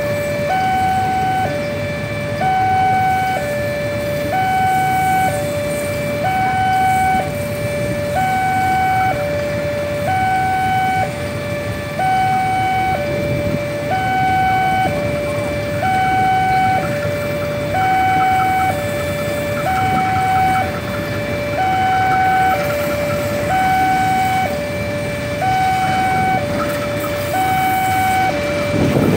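Railway level-crossing warning alarm sounding a continuous two-tone pattern, switching between a lower and a higher tone about once a second, over the low rumble of passenger coaches rolling past. Near the end the rumble swells as the CC201 diesel locomotive comes by.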